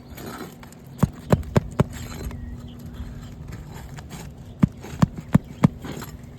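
Two quick runs of four sharp knocks, about a second in and again near the five-second mark: a tool striking while roofing nails are worked out from under asphalt shingles.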